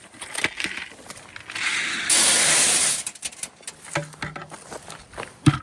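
Loose shelled corn dumped out of a container in one dry, rushing pour that lasts about a second and a half, with scattered clicks and knocks around it.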